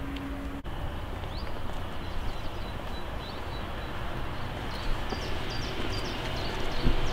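Outdoor ambience: a steady rushing background with short, faint bird chirps, more frequent in the second half.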